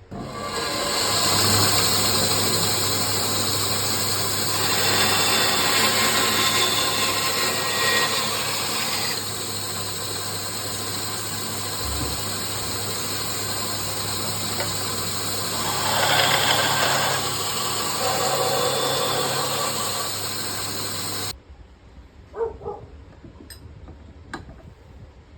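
Wood lathe running with a tool working the spinning wood: a steady motor hum under a hissing cutting noise that swells and eases as the cut changes. It stops abruptly about 21 seconds in, leaving only a few faint clicks.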